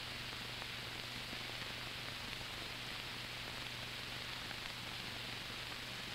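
Steady hiss with a low steady hum and a few faint clicks: the background noise of an old film soundtrack.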